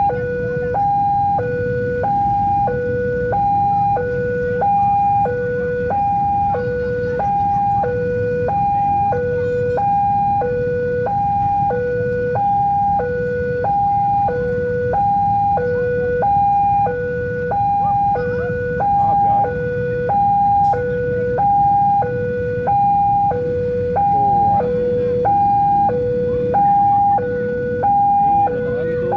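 Railway level-crossing warning alarm sounding: a steady two-tone electronic signal alternating between a high and a low tone, about one high-low cycle a second, over a steady low rumble. It signals that a train is approaching and the barriers are down.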